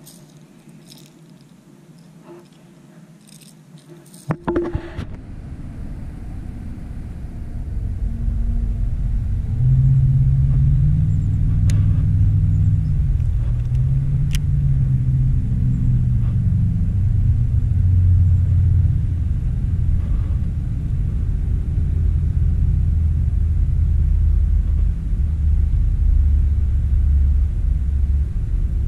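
Wind buffeting the microphone: a loud, uneven low rumble that builds up after a quiet first few seconds and holds, with a couple of faint sharp clicks near the middle.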